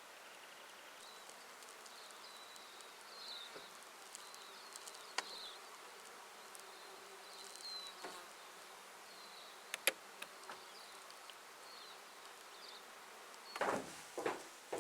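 Flies buzzing, faint for most of the time and then loud in short passes near the end, as one comes close. Faint high chirps and a few sharp clicks are heard as well.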